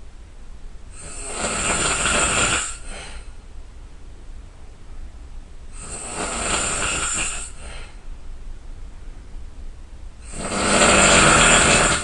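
A person snoring loudly while asleep: three long, rasping snores about four to five seconds apart, with quiet breathing between them. The last snore is the loudest.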